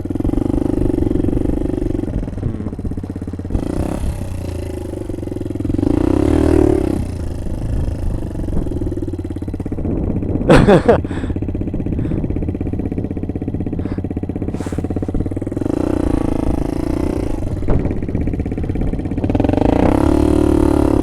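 A small motorbike engine running under way, swelling with the throttle several times. There is a brief sharp loud clack about halfway through.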